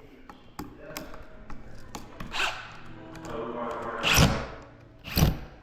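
Music playing, with scattered sharp knocks and two loud thuds about four and five seconds in.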